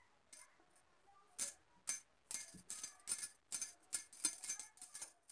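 A spoon dabbing and scraping oil across a rolled-out kulcha dough round on a wooden board: a run of faint, quick taps, about three a second, starting about a second and a half in.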